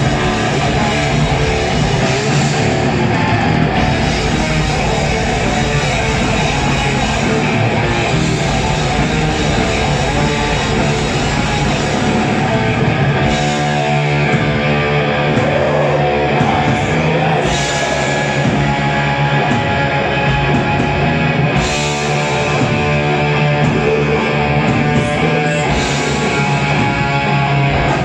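Heavy metal band playing live and loud: a dense wall of distorted electric guitars over bass and drums. About halfway through, the lowest end thins and the guitars hold longer notes.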